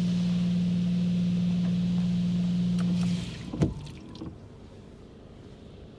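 Touchless car wash gantry running, a steady hum with a hiss over the car, heard from inside the car; it shuts off about three seconds in. Just after, a windshield wiper sweeps the wet glass with a short squeak.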